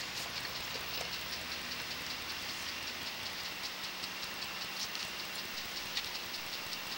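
Flushed water rushing and pattering through a drain line, an even splashing hiss with fine ticks, over a steady low hum.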